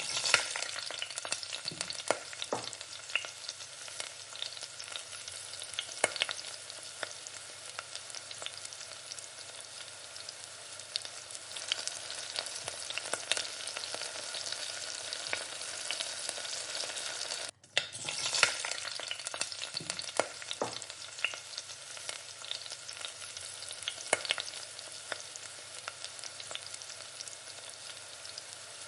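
Food frying in oil in a pan: a steady sizzle with frequent sharp crackles and pops. The sound cuts out for an instant about two-thirds of the way through, then carries on.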